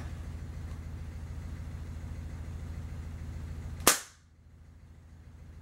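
A single shot from a Crosman Model 70 CO2 air rifle about four seconds in, one sharp crack, with a steady low hum underneath before it.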